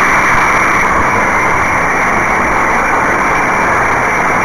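Spitfire Mk.IX's Rolls-Royce Merlin V12 engine running steadily in flight with the rush of the slipstream, a loud even drone.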